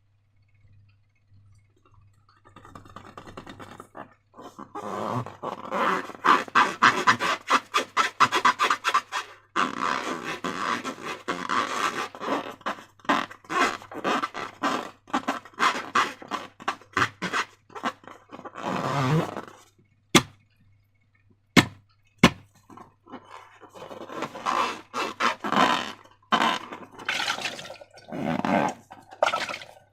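Slime being worked and squished, giving rapid wet, sticky crackling and clicking. A short break comes about two-thirds of the way through, with a few single sharp clicks, and then the crackling starts again.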